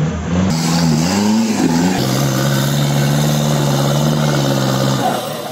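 Off-road Jeep engine revving, its pitch rising and falling, then held at a steady high note for about three seconds while the Jeep climbs a steep muddy slope under load. The note drops away near the end.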